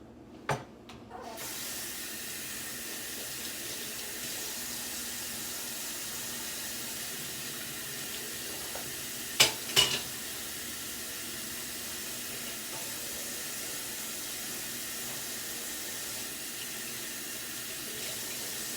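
Kitchen tap running steadily into a sink, with a click near the start and two sharp knocks close together about halfway through.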